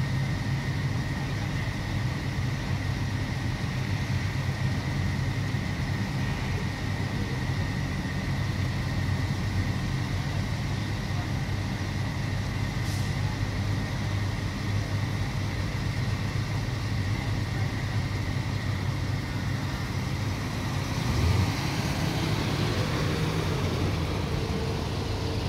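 Classic cars idling in line, the nearest an early-1960s Cadillac convertible with its big V8 running steadily; near the end the Cadillac pulls away, its engine rising in pitch.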